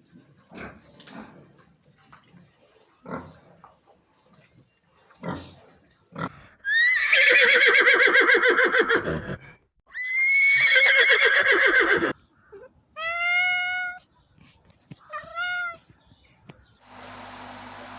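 A run of animal sound effects: a pig giving short grunts, then a horse whinnying twice, long and loud with a shaking pitch, then a cat meowing twice. Near the end a steady hiss with a low hum comes in.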